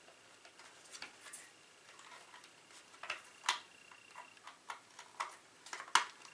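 Scattered light plastic clicks and taps as a hardwired Kidde smoke alarm is handled and snapped onto its mounting plate. The sharpest clicks come about three and a half and six seconds in.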